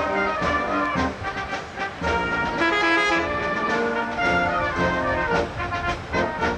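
Brass band playing a tune.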